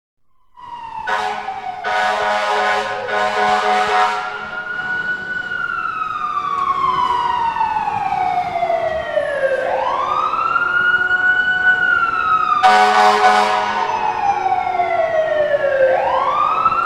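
Fire truck siren wailing: each cycle rises quickly, then falls slowly over about five seconds before swinging up again. Horn blasts cut in over it, three short ones near the start and a longer one about two-thirds of the way through.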